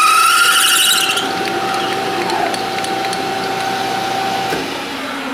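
Half-inch twist drill cutting into a spinning aluminum part on a metal lathe, squealing with a rising pitch for about the first second as it chatters on entry, then settling into a steady whine that stops near the end. The chatter is a sign of the spindle running too fast for a drill this size.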